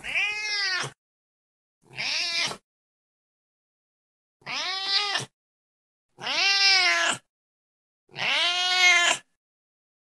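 Domestic cat meowing five times, each meow about a second long and rising then falling in pitch, with silent gaps between.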